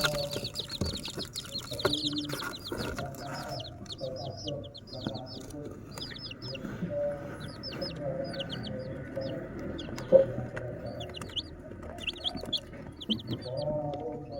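Baby chicks peeping in quick runs of short, high, falling chirps, with lower clucking underneath. A single sharp tap about ten seconds in.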